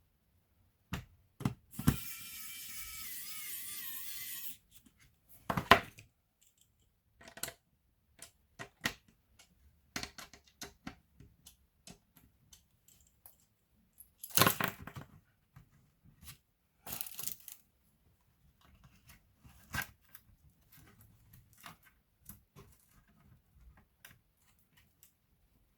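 Clicks and taps of small laptop parts, screws and plastic being handled, with a denser clatter about 14 s in. About 2 s in there is a steady rasping, tearing-like sound with a wavering squeal, lasting about two and a half seconds.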